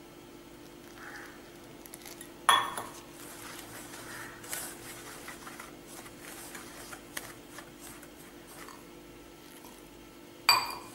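Fingers rubbing and stirring flour in a stainless steel bowl, faint and rustling, with two sharp metallic clinks, about two and a half seconds in and near the end, as a steel cup knocks against the bowl while hot water is poured in to make the dough.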